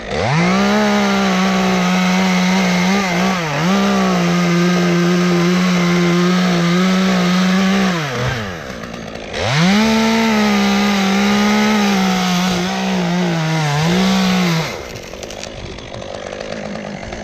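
Two-stroke chainsaw run at full throttle in two long cuts, each rising to speed, dipping once briefly, then falling back, the first about eight seconds, the second about five; near the end it drops to a quieter idle. It is cutting through the tree's final top.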